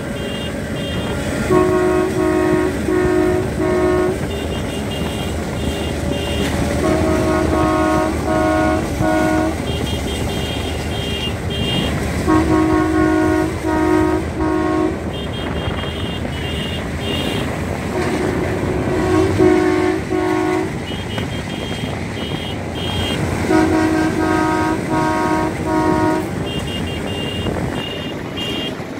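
A diesel locomotive and its train passing close by, with a steady running rumble. Over it a tune of short horn-like toots plays in groups of about four, high and low groups taking turns, and repeats about every five and a half seconds.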